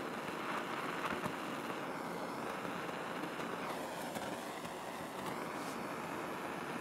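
Handheld gas torch burning with a steady hiss, its flame heating the dented brass fuel tank.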